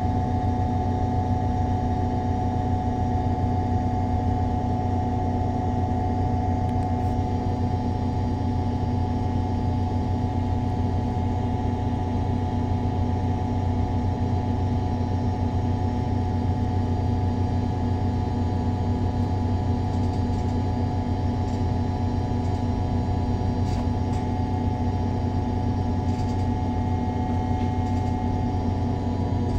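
MAN Lion's City G NG313 articulated bus's CNG engine, heard from directly above the rear engine compartment, running at a steady speed, as at idle. A deep, constant hum with a steady whine above it.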